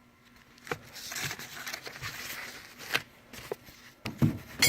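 Hand tools clicking and rattling in a metal toolbox drawer, then a couple of loud knocks and a sharp metal bang with a short ringing as the steel drawer is shut near the end.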